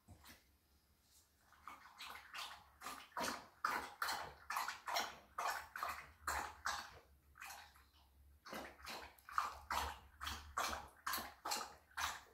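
Yellow Labrador retriever lapping water from a stainless steel bowl: a steady run of wet laps, about two to three a second, starting after about a second and a half, with a short break about eight seconds in.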